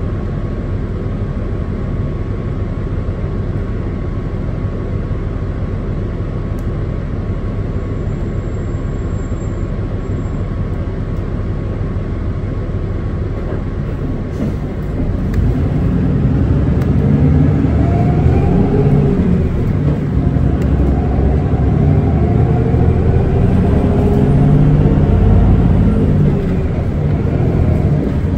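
Running sound inside a Hino Blue Ribbon City Hybrid city bus on the move: a steady low drone, then about halfway through the drivetrain grows louder, its pitch rising and falling.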